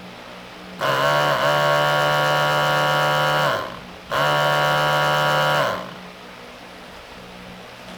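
Cow mooing twice: two long, drawn-out calls, the first about three seconds and the second shorter, each dropping in pitch as it ends.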